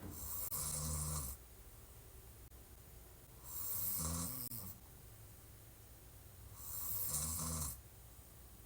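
A young woman lying on her back snoring hard: three loud snores about three and a half seconds apart. Each snore is a low pitched drone with a breathy hiss over it, with quieter breathing between them.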